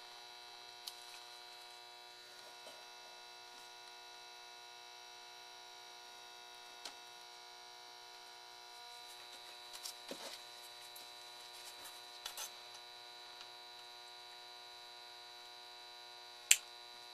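Steady electrical mains hum with a few faint handling clicks, then near the end one sharp snap of flush cutters clipping a component lead on the circuit board.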